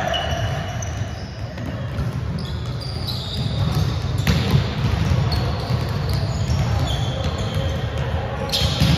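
Volleyballs being hit and bouncing on a gym court, with a sharp ball impact about four seconds in and another near the end. Short high squeaks come and go throughout.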